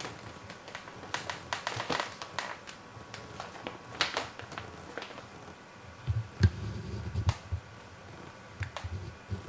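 Clear plastic sheeting of a small mini-greenhouse crinkling and crackling in short spells as kittens step and shift about on top of it, with a few soft low thumps, the loudest about six and a half seconds in.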